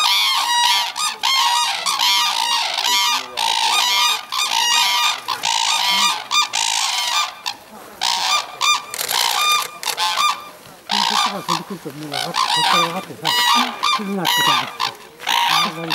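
A flock of red-crowned cranes calling: many loud, short calls in quick succession and overlapping one another, with a couple of brief lulls.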